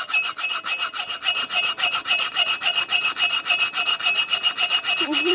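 A saw blade cutting through steel handcuffs in rapid, even strokes: a rasping scrape with a high metallic ring over it.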